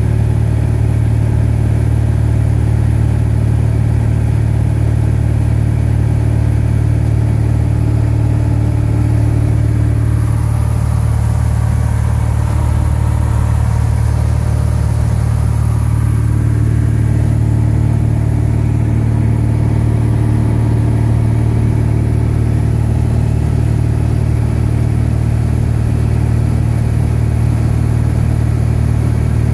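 Steady drone of a light plane's piston engine and propeller, heard inside the cabin in level flight. The drone's middle tones thin out for a few seconds around the middle, then return.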